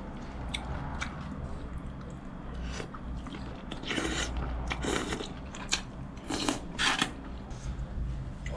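A person eating thick noodles: chewing and several short noisy mouth sounds, with scattered light clicks of metal chopsticks and spoon against the dishes.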